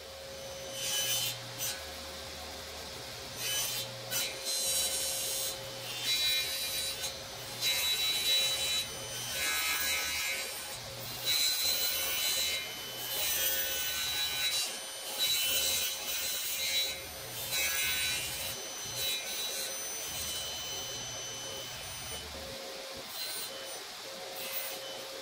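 Table saw running steadily with a fixed hum while a red oak blank is nibbled across the blade on a sled. Each pass brings a short burst of cutting, about one a second, and they thin out near the end.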